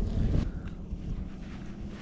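Wind buffeting the microphone as a low rumble, stronger in the first second, with a few faint clicks about half a second in.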